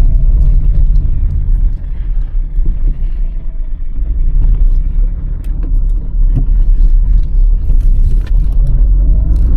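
Car driving along: a steady, loud low rumble of engine and road noise, with a few faint knocks.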